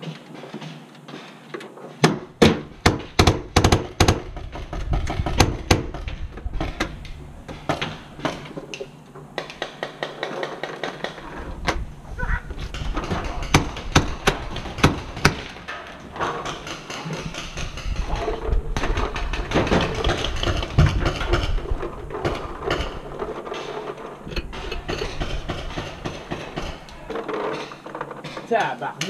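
Paintball markers firing: a rapid burst of sharp pops, about five a second, a couple of seconds in, then scattered shots. Paintballs smack against the plywood walls of the tower.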